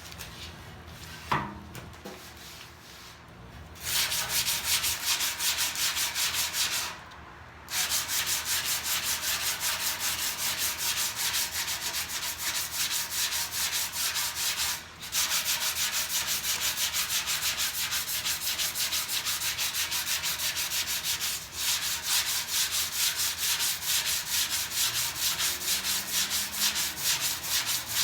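Sandpaper rubbing over cured Bondo body filler in quick, regular back-and-forth strokes, smoothing the patch down. It starts about four seconds in and stops briefly near seven and fifteen seconds. A single sharp click comes just after the start.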